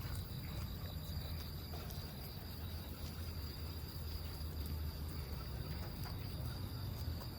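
Night insects, crickets, trilling steadily in a high tone, with a second pulsing trill for the first couple of seconds, over a constant low rumble.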